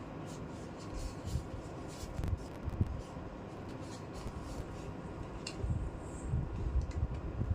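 Plastic toy pieces and packaging being handled: scattered light clicks and taps over soft low thumps, busiest near the end.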